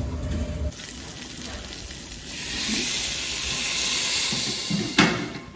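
Water poured into a hot pot of browned vermicelli, hissing and sizzling, building up from about two seconds in. A low rumble in the first second cuts off abruptly, and a single knock comes near the end.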